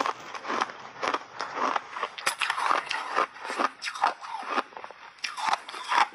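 Crunching of milk-powder-coated block ice being chewed, close to the microphone: a rapid, irregular run of sharp crunches and crackles.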